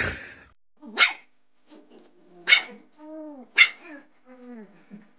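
Small dog giving three sharp, high-pitched barks about a second apart, each trailing off into falling, whiny yelps. A short burst of noise at the very start.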